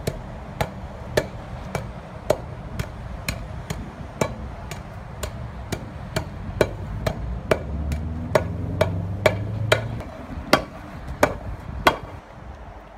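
Steel hand tamper pounding loose patching asphalt into a pothole, about two sharp thuds a second, compacting the fill. The strikes stop near the end, and a low hum rises in the background partway through.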